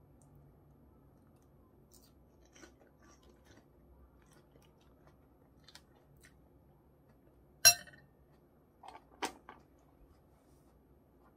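Quiet chewing of salad, with small crunches, and a utensil clicking sharply against a ceramic bowl: one loud click a little past halfway, then a few lighter clicks about a second later.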